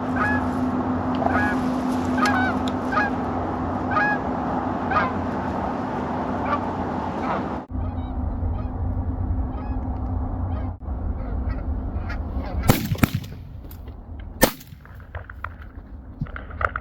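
Canada geese honking, short calls about once a second, as a flock comes in over the decoys. Near the end, two shotgun blasts about two seconds apart.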